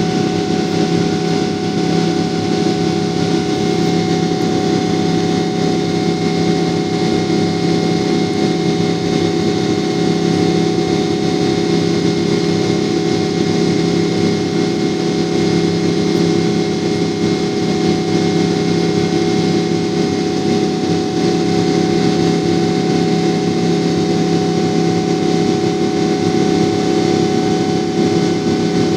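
Cabin noise inside a Boeing 777 climbing after takeoff: the jet engines and the airflow past the fuselage make a steady, unchanging rush, with a low hum and a few steady whining tones over it.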